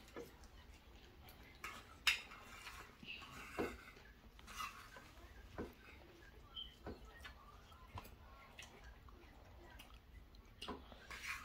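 Spoons clinking and scraping on plates now and then during a meal, faint and spaced a second or two apart.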